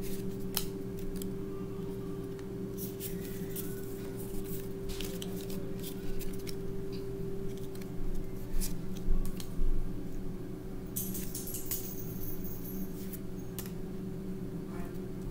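Handling of Pokémon trading cards and the foil booster-pack wrapper: scattered clicks, card flicks and rustles, with a brief high crinkle a little after the middle. A steady low hum runs underneath.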